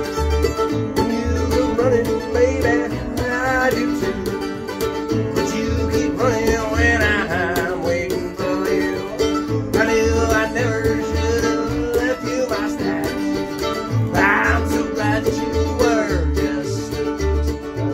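Acoustic string band playing a bluegrass-style tune on mandolin, acoustic guitar and upright bass, with the bass plucking a steady beat about once a second under a wavering mandolin melody.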